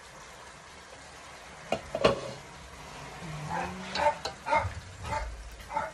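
A spatula stirring chicken and vegetables sizzling in a pot, with the glass lid knocking twice about two seconds in. In the second half a dog gives a string of short barks.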